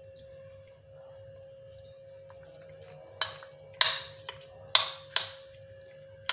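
Metal spoon stirring raw chicken pieces in a glass bowl. From about halfway through it clinks sharply against the glass about half a dozen times. A faint steady hum runs underneath.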